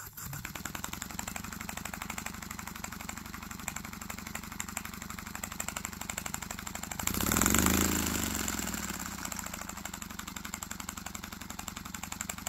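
Single-cylinder paper air engine idling through its homemade paper exhaust: a fast, even run of short exhaust puffs. It swells louder for a moment a little past halfway, then settles back to the idle.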